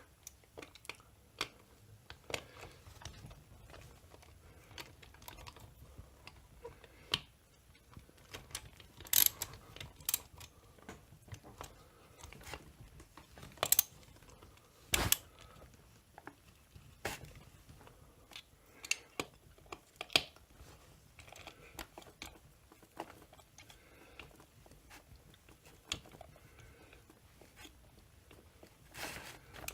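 Irregular clicks and sharp knocks of hand tools against metal parts, a few louder clacks among them, as the crankcase screws of a chainsaw are tightened down.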